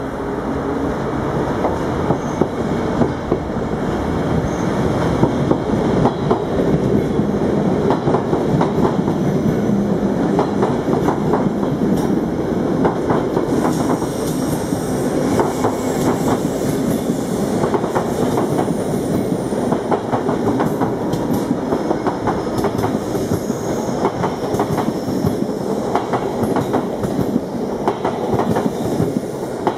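Passenger trains running close by: wheels clattering over rail joints and points with a steady rumble, and a faint wheel squeal now and then. The sources are a rake of DB Intercity coaches leaving the station and four coupled NS Koplopper (ICM) electric multiple units running out beside it.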